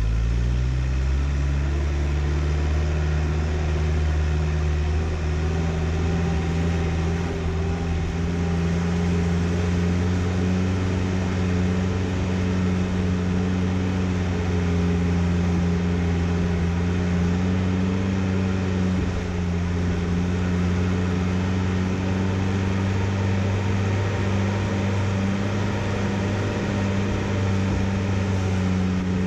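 A 4WD vehicle's engine running under load as it drives along a rough dirt track. It revs up over the first couple of seconds, then holds a steady drone.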